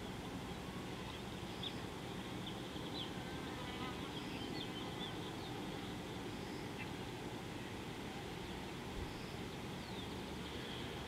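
Outdoor insect buzzing over a steady low rush, with short faint high chirps scattered through it and a soft high note recurring every two to three seconds.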